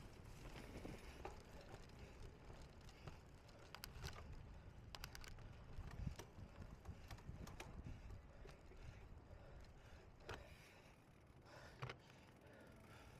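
Faint low rumble with scattered sharp clicks and rattles, typical of a cyclocross bike ridden over rough ground: frame, chain and parts rattling on the bumps.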